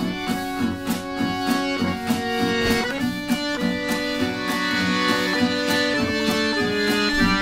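Instrumental background music with a steady beat and held, changing notes.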